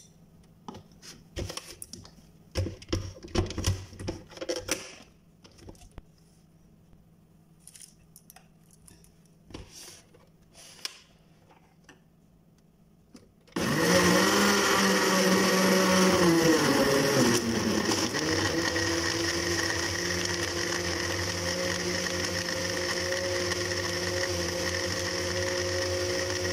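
A few knocks and clicks, then about halfway through a countertop blender switches on suddenly and runs loud and steady. A couple of seconds after starting, its motor pitch drops as it takes the load of fruit chunks, ice and milk, then holds level while it purées them into a smoothie.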